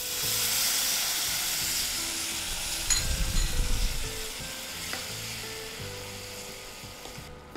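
Water poured into hot ghee with roasted dry fruits and sugar in a nonstick kadai, sizzling loudly the moment it hits, then hissing on more softly as it is stirred with a spatula. A few dull knocks come about three seconds in.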